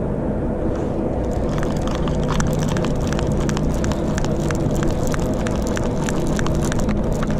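Conventional saltwater fishing reel clicking rapidly as its crank is turned, several clicks a second from about a second and a half in, over the steady hum of a boat's engine.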